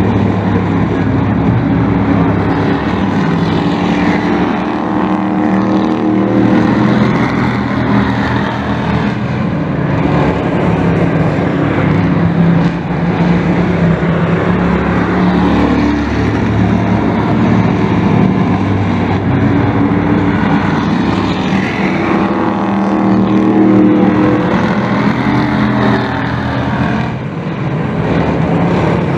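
Several dirt-track race trucks running hard around the oval at once, their engines a continuous loud drone whose pitch rises and falls as they accelerate out of the turns and pass by.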